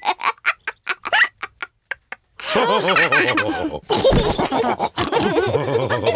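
Cartoon pig characters laughing together in bursts with snorting, after a quick run of short, sharp sounds in the first two seconds.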